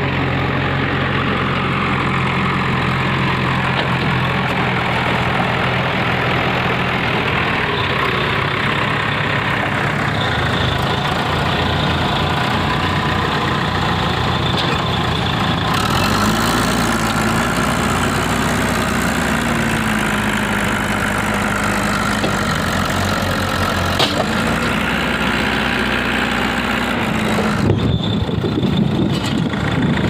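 Heavy diesel engine running steadily. After a cut about halfway, the JCB 3DX backhoe loader's Kirloskar diesel engine works near, its pitch rising and falling under load, with one sharp knock in the second half.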